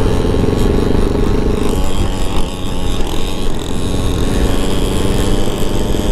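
Honda Ruckus scooter's 49cc four-stroke single running steadily at cruising speed, with tyre noise from a gravel road.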